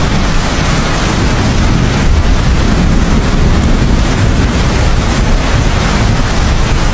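Heavy rain falling steadily, a dense, even hiss with a deep low rumble underneath.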